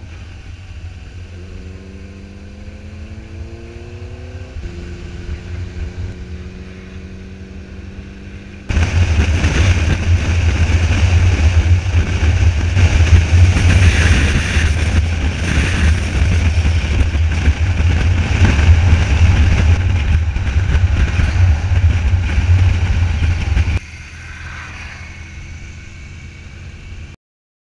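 Motorcycle engine heard from the rider's own bike, rising in pitch as it accelerates, with a gear change about five seconds in, then loud wind rush on the microphone at road speed for about fifteen seconds. The engine comes back near the end and the sound cuts off suddenly.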